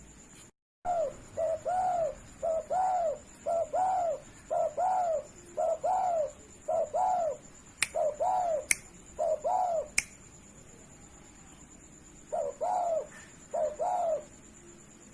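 Spotted dove (derkuku) cooing: a run of short, arched coo phrases repeated in quick succession, then a pause of a couple of seconds before two more phrases near the end. Three sharp clicks fall among the coos in the middle.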